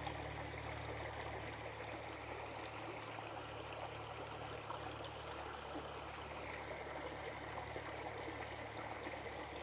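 Creek water running steadily, a continuous rushing with no breaks.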